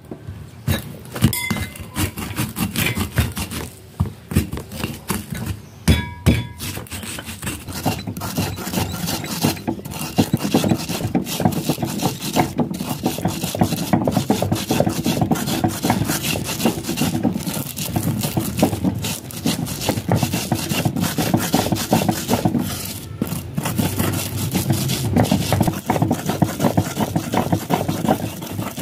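Wooden pestle grinding garlic, candlenuts, coriander seeds and salt on a flat stone mortar (ulekan on a cobek). It starts with separate knocks and crunches as the whole spices are crushed, then settles into continuous rhythmic scraping and rubbing of stone and wood as the spices are ground to a paste.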